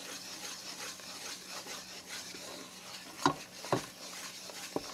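Wooden spoon stirring and scraping a roux of flour, butter and bacon fat in a nonstick saucepan, with a light sizzle as the roux cooks. The spoon knocks against the pan three times in the second half.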